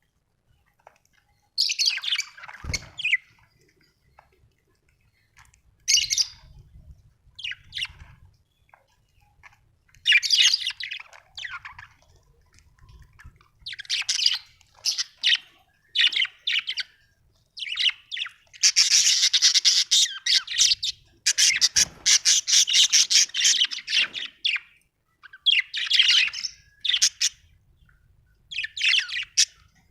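Budgerigar chirping and warbling in short bursts, with two longer runs of fast chatter a little past the middle.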